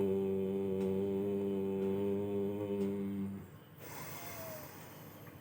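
A single voice chanting 'Om', holding the closing hum on one low, steady pitch until it ends about three and a half seconds in, followed by an audible in-breath.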